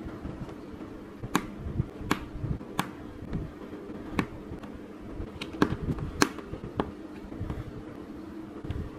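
LOZ mini plastic building bricks clicking as they are pressed onto a baseplate's studs: about seven sharp snaps at irregular intervals, the loudest around the middle, over a steady low hum.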